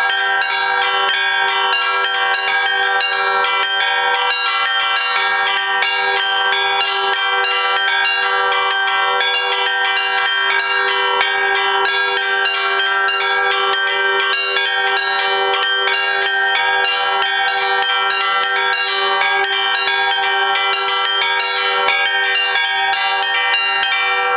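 Russian Orthodox monastery bells rung together in a continuous peal: rapid strikes on small, high bells over the steady ringing of larger bells.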